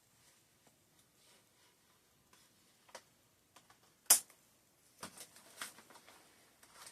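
Doll box packaging being worked open by hand: scattered small clicks and crinkles, a single sharp snap about four seconds in, then a run of crackling.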